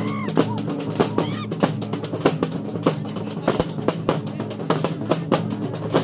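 Large double-headed drums beaten with sticks in a fast, loud rhythm, about three strong strokes a second, over a steady low drone.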